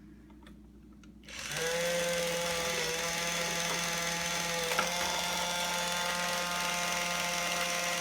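Toy battery-powered drill from a children's workshop set switching on about a second and a half in, then whirring at a steady pitch as it drives a toy screw, with a small click midway.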